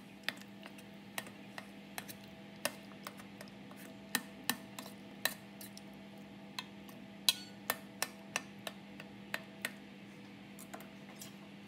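Kitchen knife tip knocking on the bottom of a stainless steel bowl as it stabs through raw chicken thighs: irregular sharp metallic clicks, about two a second.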